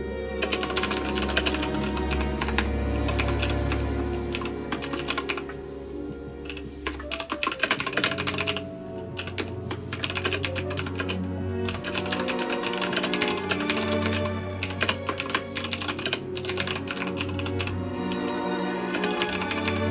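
Rapid typing on a computer keyboard, keystrokes clattering in runs with brief pauses, over background music.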